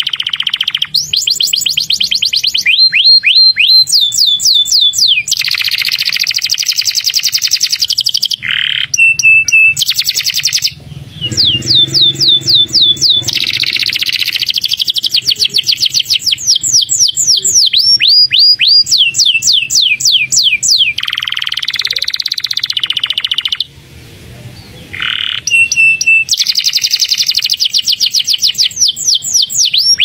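Domestic canary singing a long, continuous song: fast trills of repeated sweeping notes alternating with buzzy rolls and short steady whistles, broken by two brief pauses.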